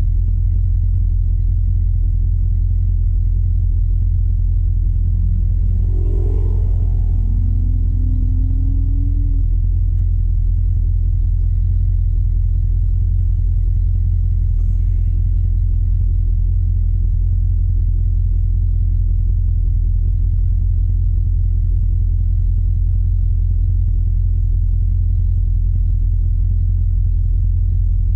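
Vehicle engine idling with a steady deep rumble while stopped. About five seconds in, a brief pitched sound rises in pitch over it.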